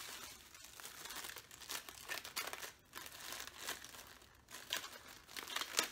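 Plastic packaging crinkling in irregular bursts as a small boxed part is pulled out of its wrapping.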